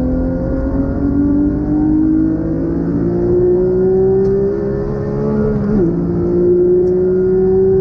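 Porsche 911 GT3's naturally aspirated flat-six heard from inside the cabin under hard acceleration, the engine note climbing steadily with rising revs. A quick gear upshift about six seconds in briefly drops the pitch before it climbs again.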